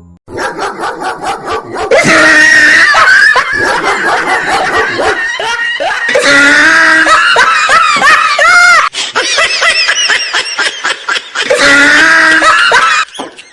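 Loud laughter and shrieks mixed with dog sounds, in three long loud stretches with short pauses between.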